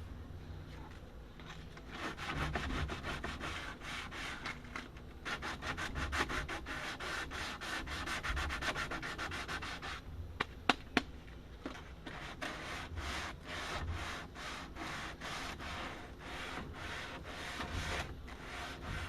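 Hand sanding wood with fine-grit sandpaper: quick, rhythmic back-and-forth rubbing strokes, pausing briefly twice, with a few sharp knocks in the second pause.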